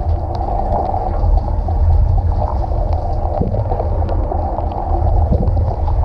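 Dishwasher wash cycle heard from inside the tub: water jets from the spray arms splashing steadily over the dishes and the camera, with a low constant rumble and scattered small ticks of droplets. Detergent has already been released, so this is the main wash.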